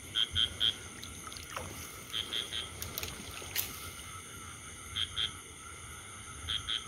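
A frog calling in short high-pitched notes, in groups of two or three, repeated every second or two, over the low sloshing of someone wading through floodwater.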